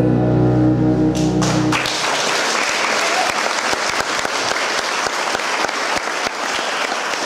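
The final chord of a song on a Yamaha Tyros arranger keyboard is held and dies away in under two seconds, and the audience breaks into steady applause that continues to the end.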